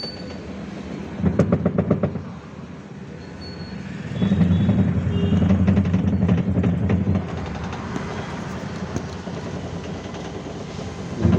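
LG 6 kg top-loading washing machine running a spin-cycle test, its motor giving a steady hum. Louder stretches of rapid rattling come about a second in and again from about four to seven seconds. It has a freshly cleaned and greased gearbox (clutch) assembly, whose noise the repairer says is about 90% reduced.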